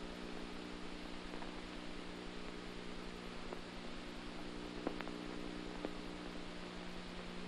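Steady electrical mains hum under a bed of hiss, with a few faint clicks about five seconds in; no music is playing.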